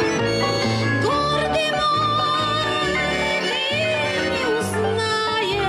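A small acoustic band of two acoustic guitars and an accordion playing a slow romance, with a steady bass-and-chord accompaniment under a wavering melody line.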